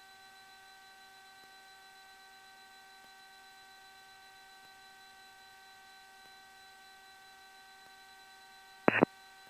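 Steady electrical hum made of several fixed tones, picked up in a twin-engine Cessna 414's headset intercom audio feed rather than the engine noise itself. About 9 s in there is a short burst of radio noise as a transmission keys up.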